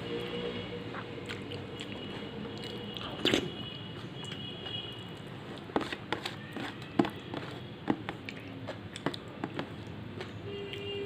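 A person eating fried fish: bites and chewing, with short sharp crunches scattered through, the loudest about three seconds in.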